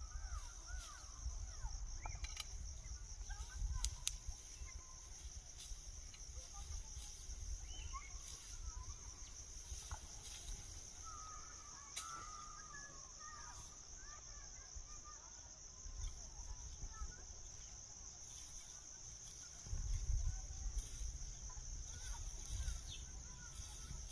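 Outdoor ambience: insects chirring in a steady high drone, with scattered short bird chirps. A low rumble, likely wind on the microphone, grows stronger in the last few seconds.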